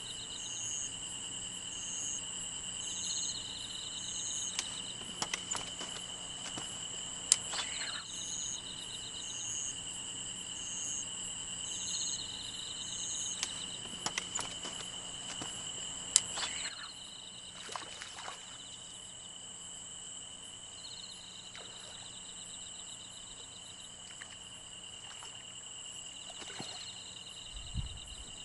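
A chorus of night insects, crickets among them, chirping: several steady high trills overlap a chirp that pulses at an even beat, about one pulse a second. A few sharp clicks break through, the loudest about a quarter and halfway in.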